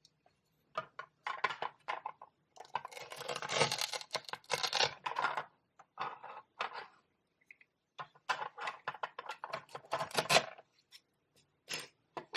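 Plastic toy food handled with light clicks and knocks, with two longer crackly stretches of Velcro-joined pieces being pulled apart.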